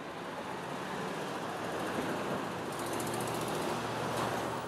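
Cars driving over a railroad grade crossing, with engines and tyres passing close by and growing slightly louder. A fast, high-pitched ticking joins for about a second past the middle.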